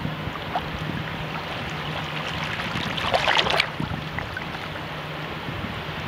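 Shallow tidal water lapping and rippling close to the microphone, with a short crackling splash of a small wave about three seconds in.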